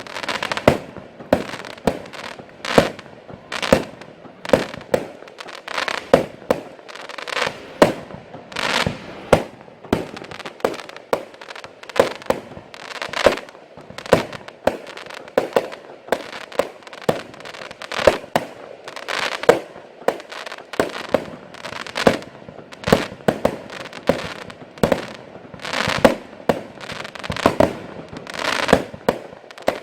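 Category F2 consumer fireworks going off in a continuous series of sharp bangs, about two a second, each with a short crackling trail.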